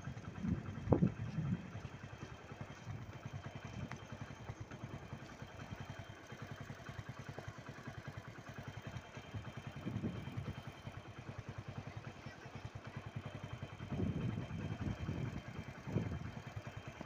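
A motorcycle engine running steadily, with louder low rumbles about a second in and again near the end.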